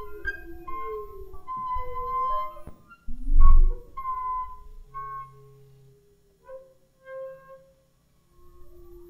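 Ultrasonic acoustic-feedback instruments, their tones shifted down into hearing range, sounding clear whistling pure tones that jump between pitches and sometimes glide. About three seconds in a low tone swoops upward, the loudest moment. In the second half the sound thins to a few short, sparse tones with gaps.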